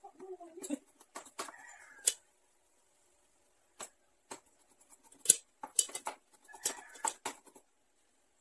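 Kitchen cleaver chopping garlic on a wooden cutting board: irregular knife strikes on the board, with a pause of a second or two partway through. A few animal calls sound between the strikes.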